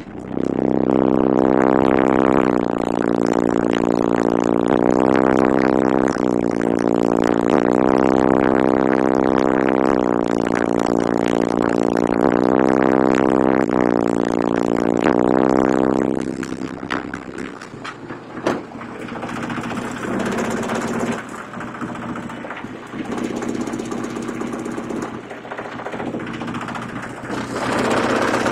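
Kicker CVX 15-inch subwoofer in a sealed box, driven by a CT Sounds 1400.1D amplifier, playing loud, bass-heavy slowed music with notes that step in pitch every second or two. About sixteen seconds in the loud bass drops away and the music carries on quieter, swelling again near the end.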